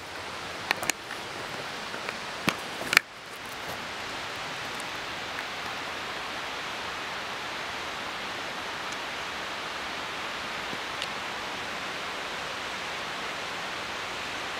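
Steady, even rushing noise in the background. In the first three seconds there are a few sharp clicks and steps; the sharpest comes about three seconds in, and after it only the rushing noise is left.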